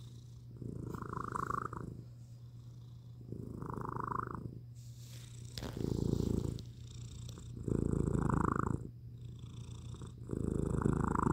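Grey-and-white domestic cat purring close up, swelling into a louder stretch of about a second roughly every two seconds with each breath, the later swells the loudest.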